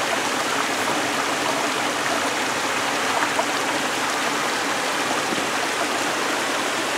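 Small waterfall cascading down a narrow rock chute into a pool: a steady rush of falling water.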